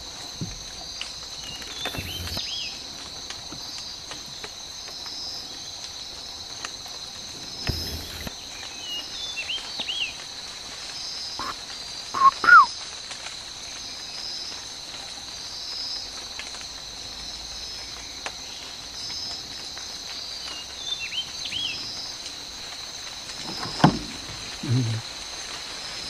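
Steady chorus of insects: a continuous shrill hum with a regularly repeating pulsed note. Short bird chirps come and go over it, with two louder calls about halfway through and a couple of dull low knocks near the end.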